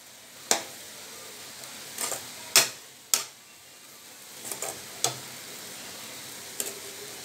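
Steel ladle knocking and scraping against a steel kadai while stirring a beans and avaraikai poriyal, with about seven sharp clinks, over a faint steady sizzle of the vegetables cooking off their remaining water.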